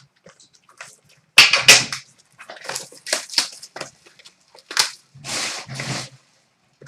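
Trading card packaging being opened and handled: two loud sharp snaps, then a run of crackling and rustling as wrapper and cardboard are torn and pulled.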